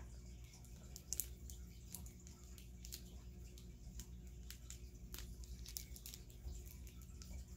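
A makeup brush's packaging being handled and opened: scattered faint clicks and rustles over a low steady hum.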